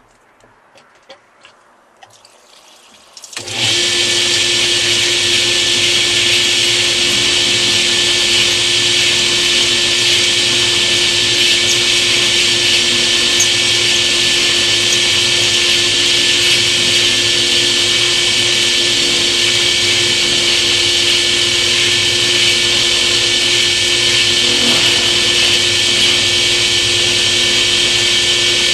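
Drill press switched on about three and a half seconds in and running steadily with water flowing, drilling holes in a natural stone tile with a 3/16 inch glass bit; a steady motor hum under a loud hiss.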